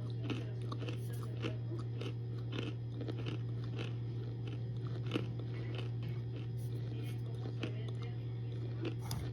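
Someone biting and chewing hard baked cornstarch, with repeated sharp crunches about twice a second over a steady low hum.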